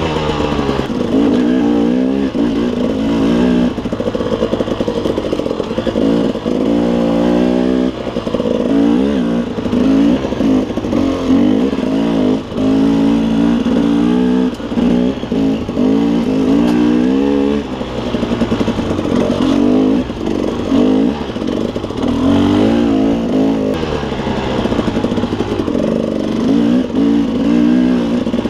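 KTM 300 two-stroke dirt bike engine being ridden hard, its revs rising and falling constantly as the throttle is opened and shut, with brief drops in between.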